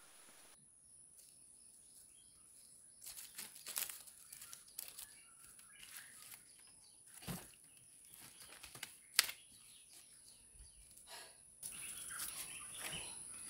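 Faint rustling and crackling of dry leaves, grass and sticks being handled, with a few sharp snaps, starting about three seconds in.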